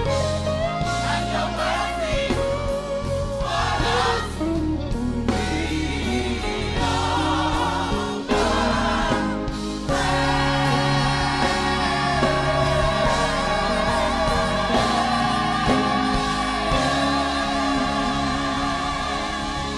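Gospel choir singing with instrumental accompaniment. From about ten seconds in, the voices hold long notes with vibrato over a steady bass.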